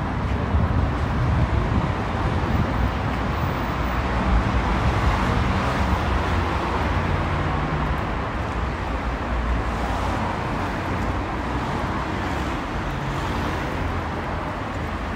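Steady city street traffic noise from cars on the road.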